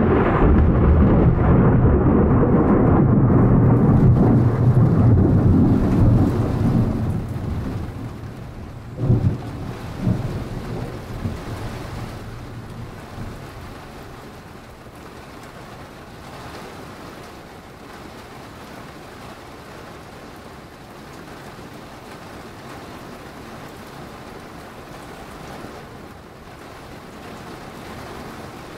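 A loud peal of thunder that breaks suddenly, rumbles deep and heavy for several seconds, then rolls away, with two sharper cracks about a third of the way through. It dies down to steady rain falling for the rest.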